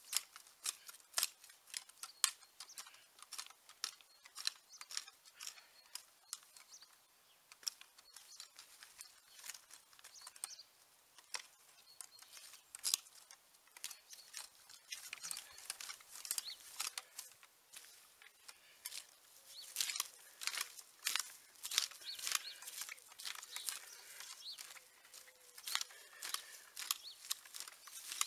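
Metal tines of a Wolf-Garten long-handled hand cultivator scraping and chopping into soil, roots and weeds in quick, irregular strokes, several a second: a bed being dug over by hand.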